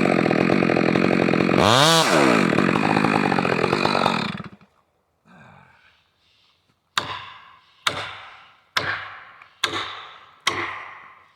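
Stihl 462R two-stroke chainsaw running at full throttle, dipping briefly in speed and climbing back, then shut off about four seconds in. After a pause come five sharp knocks, evenly spaced a little under a second apart, each ringing away.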